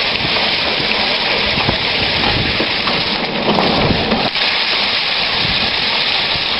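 Foot-pedal rice thresher running: its spinning drum strips the grain from bundles of rice stalks, and the grain pelts the housing in a steady hiss like rain. The sound swells fuller and louder for a couple of seconds around the middle.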